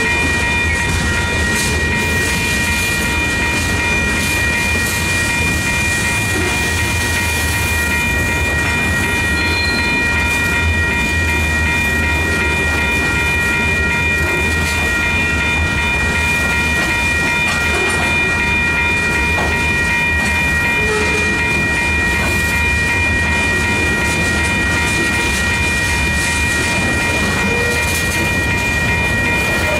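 A long freight train of loaded cars rolling past close by: steady rumble of the wheels on the rails with some clickety-clack over the joints, and a steady high-pitched whine on top.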